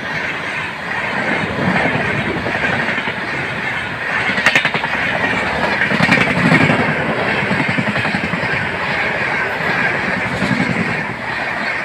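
Passenger coaches of an Indian Railways express train running past close by at speed: a steady, loud noise of steel wheels on rail with a continuous clickety-clack.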